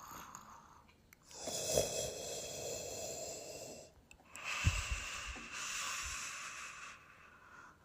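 A person's wheezy breathing: two long, hissy breaths of about two and a half seconds each, with a brief low thump at the start of the second.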